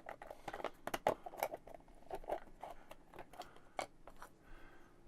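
Laser-cut MDF kit pieces being handled and fitted together: irregular small clicks, taps and light scrapes.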